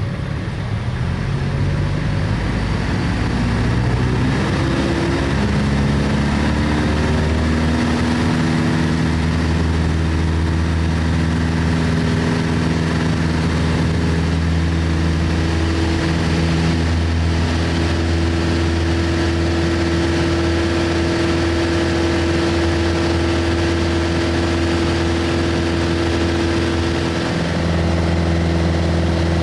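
The engine and propeller of a single-engine piston airplane, heard from inside the cabin. The pitch rises over the first several seconds as power comes up for the takeoff roll, then holds steady through the takeoff and climb.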